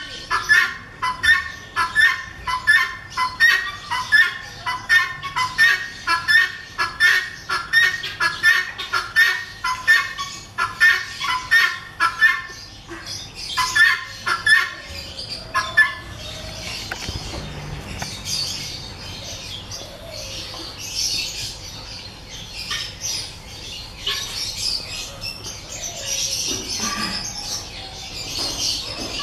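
Helmeted guinea fowl calling: a harsh call repeated about twice a second through the first half, giving way to sparser, higher chirps in the second half.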